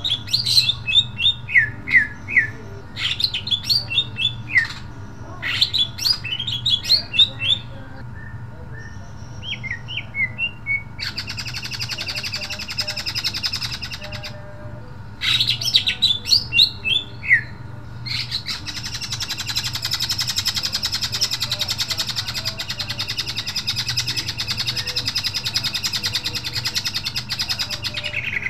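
Male greater green leafbird (cucak ijo) singing loudly. It gives bursts of quick, sharp, high notes, then long dense buzzing chatters, one about eleven seconds in and another from about eighteen seconds on.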